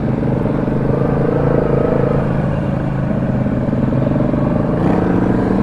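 ATV engine running while riding along the trail, its note rising and falling a little with the throttle.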